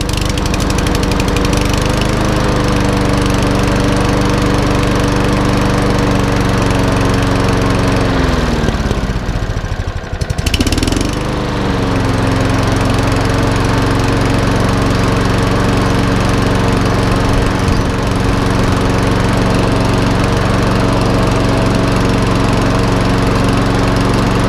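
Petrol rotary lawnmower engine, just pull-started on choke, running steadily at speed. About eight seconds in the engine speed sags for a couple of seconds, then picks back up and runs steady again.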